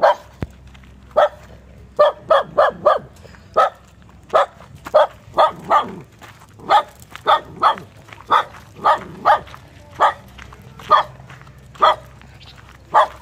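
A dog barking over and over: short sharp barks, irregularly spaced, sometimes in quick runs of three or four.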